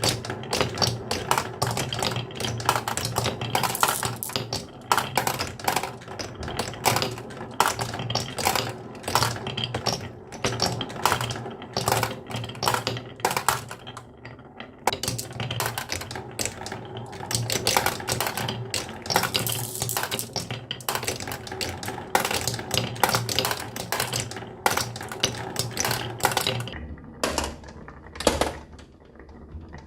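Marbles clattering and clicking down a wooden HABA marble-run track, a dense run of rapid, irregular clacks over a low steady hum, thinning out to a few scattered clicks near the end.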